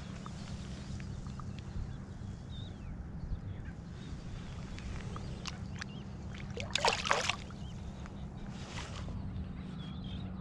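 A speckled trout splashing in shallow water as it is released by hand: one short, loud splash about seven seconds in and a fainter one near nine seconds, over a steady low rumble. Faint high chirps now and then.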